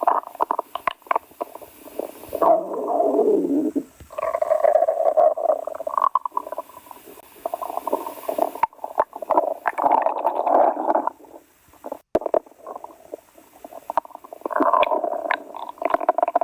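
Stomach growling: loud, gurgling rumbles that come in long bouts, with a quieter lull about two-thirds of the way through.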